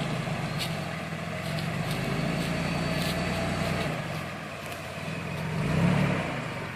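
Off-road vehicle's engine running at low speed while crawling over rocks, swelling briefly near the end, with a few light clicks and knocks.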